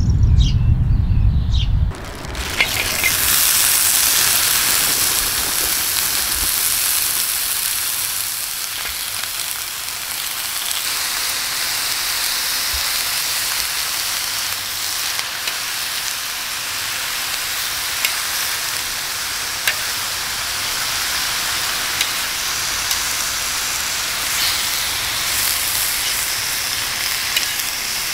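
Thin-sliced pork belly sizzling in a hot pan, a steady frying hiss that is loudest just after it starts, with a few light clicks of metal tongs turning the meat. It is preceded by about two seconds of low rumble that cuts off suddenly.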